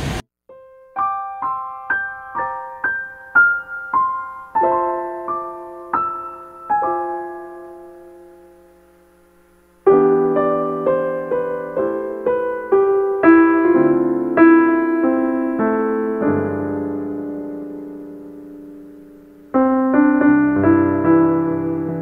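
Background piano music: a slow melody of single notes that dies away, then fuller chords with low bass notes from about ten seconds in, fading again and coming back near the end.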